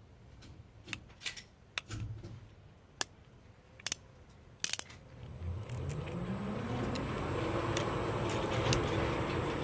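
Light metallic clicks and clinks, typical of a single-action revolver being handled before firing. From about five seconds in, a steady hum slowly rising in pitch builds up under them.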